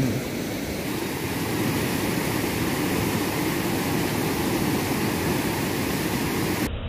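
Shallow river water rushing steadily, churning white where it pours out of a culvert.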